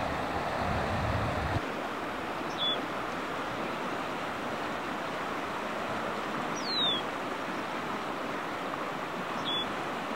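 Steady rushing of the East Fork Carson River's current, with three short high chirps on top, the middle one a falling whistle. A low rumble drops away about a second and a half in.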